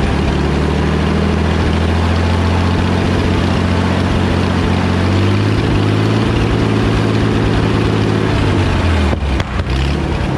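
Power Horse tractor's carbureted engine running and hunting in speed, loping as the governor overcompensates because the fuel pump puts out too much pressure and pushes fuel past the carburettor's needle and seat. It falters briefly a little after nine seconds in and picks back up.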